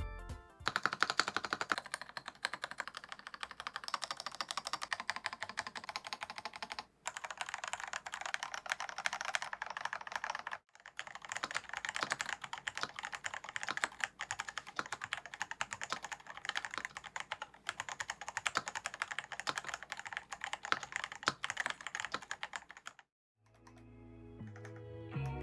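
Fast typing on a MelGeek Pixel mechanical keyboard: a dense, continuous run of key clicks, breaking off briefly twice and stopping shortly before the end.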